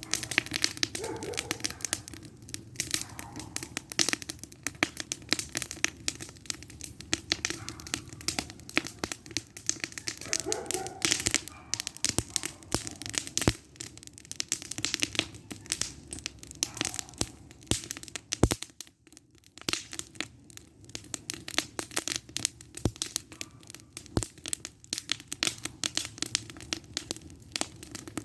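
Wood fire of old fence pickets crackling, a dense, irregular run of small pops and snaps with now and then a sharper, louder crack.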